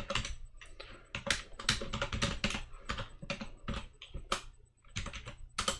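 Typing on a computer keyboard: a run of irregular keystrokes, with a sharper key press near the end.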